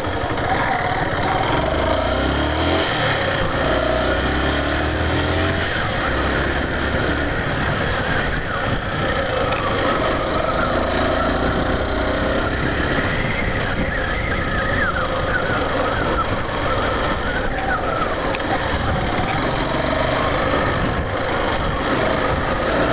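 Yamaha Factor 150's single-cylinder engine running as the motorcycle rides along, with wind and road noise on the rider's microphone. The engine note steps up and down a few times in the first six seconds.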